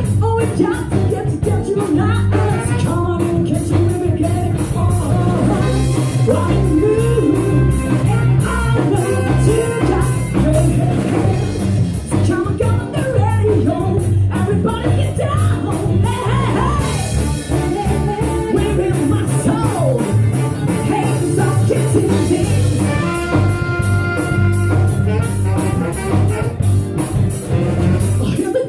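A live band playing an uptempo soul number: a singer over a steady drum beat with cymbals and a strong bass line, with held chords from the band about three-quarters of the way through.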